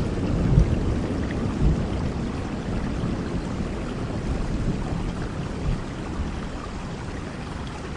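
Steady rain with the low rumble of thunder dying away over the first few seconds.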